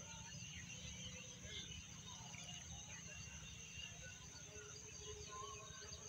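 Outdoor evening ambience over wet fields: many faint, scattered bird chirps and calls over a steady low rumble and a thin, steady high-pitched hum.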